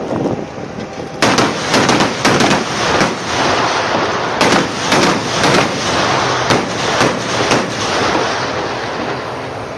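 Gunfire from AV8 Gempita eight-wheeled armoured vehicles: about a dozen sharp, irregularly spaced shots starting about a second in and dying out near the end, over a steady vehicle rumble.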